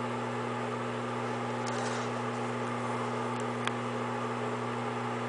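Microwave oven running: a steady low electrical hum under fan noise, with a couple of faint ticks.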